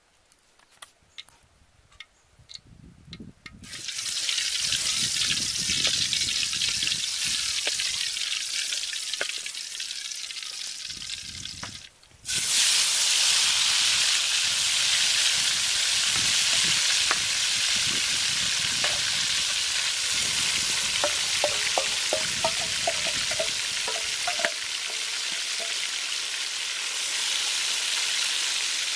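Chicken legs frying in hot oil in a metal wok over a wood fire. For the first few seconds there are only faint crackles. A loud steady sizzle starts about four seconds in as the chicken goes into the oil; it cuts out briefly about twelve seconds in, then comes back louder and runs on.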